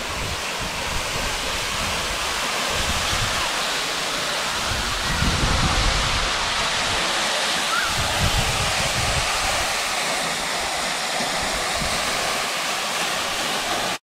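Waterfall: a steady rush of falling water, with a few low rumbles mixed in.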